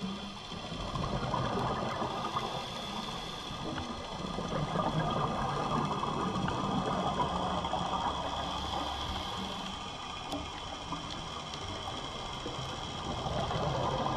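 Underwater rushing and bubbling heard through a camera housing, typical of a scuba diver's regulator breathing and exhaled bubbles. The noise swells and eases in slow waves, several seconds apart.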